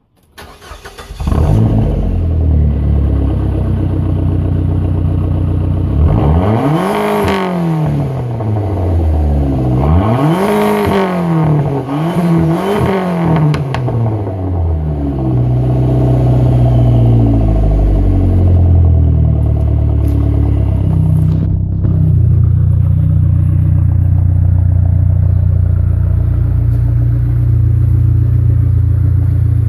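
Dodge Neon SRT-4's turbocharged 2.4-litre four-cylinder engine cold-starting about a second in, heard from behind at the exhaust. It is revved three times in quick succession around the middle, each rev rising and falling, then settles into a steady idle.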